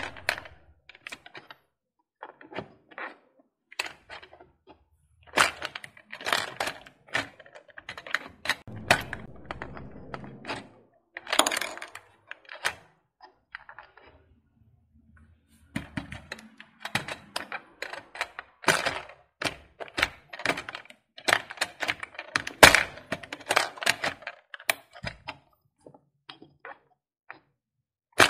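Toy ball claw machine being played by hand: a fast, irregular clatter of plastic clicks and knocks from its buttons, claw mechanism and balls, with a short quiet stretch near the middle.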